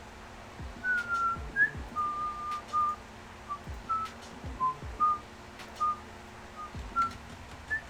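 A person whistling a tune idly: a string of about a dozen short, clear notes that step up and down in pitch, with a few faint clicks around them.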